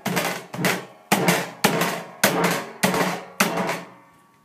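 Cornstarch-and-water mixture (oobleck) being struck repeatedly by hand, a drum-like thud with each hit as the fluid firms up under the force, about two to three hits a second, stopping near the end.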